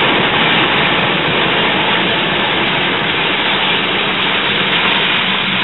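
Car wading through a flooded street: a loud, steady rushing of floodwater churned up against the car, with the engine running underneath.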